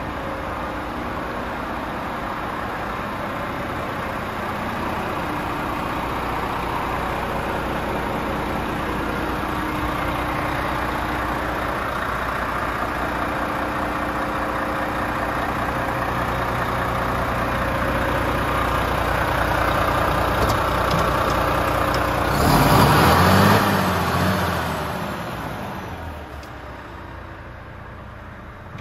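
Volvo FM 450's six-cylinder diesel idling steadily, slowly growing louder. About three-quarters of the way in there is a loud rush of noise lasting about two seconds, after which the engine is heard more faintly.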